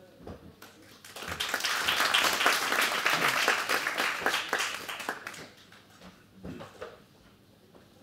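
Audience applause, starting about a second in, swelling and then dying away over about four seconds, followed by a few faint knocks.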